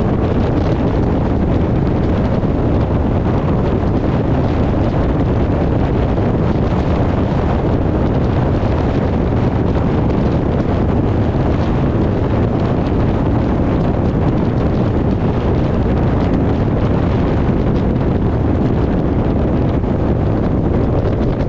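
Steady, loud rushing noise, heaviest in the low end, with no breaks or distinct events.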